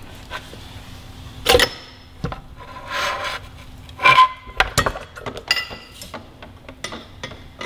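Front axle of a Suzuki GSX-R1000 sliding out of the fork and wheel hub with metal scraping and knocking. Two louder knocks follow about four seconds in, then light metallic clinks as the front wheel comes free.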